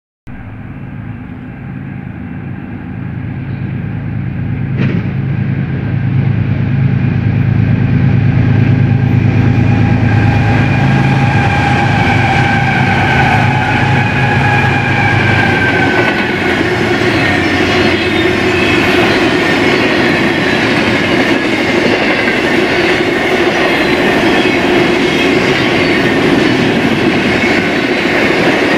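Eastbound BNSF intermodal freight train passing: the diesel locomotives grow louder as they approach, and their engine tones drop in pitch as they go by about halfway through. After that the intermodal cars roll past with a steady rumble and clickety-clack of wheels over rail joints.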